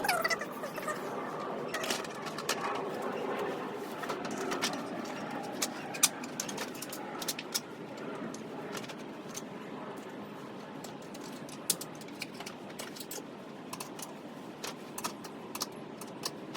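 Scattered light clicks and clinks of hand tools and metal parts during work on a car's starter, over steady background noise.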